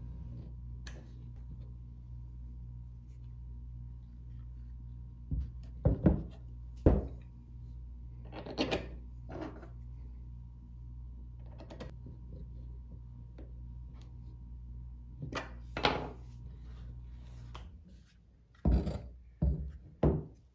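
Scattered knocks and clicks of crossbow parts and hardware being handled and fitted on a tabletop: the forearm grip, lock nuts and screws, and the bow being turned over. There are about ten of them at irregular intervals, over a steady low hum.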